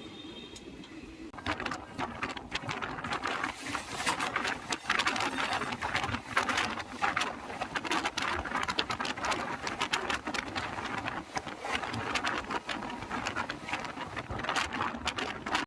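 Express train running at speed, its wheels clattering rapidly and continuously over rail joints and points from about a second and a half in.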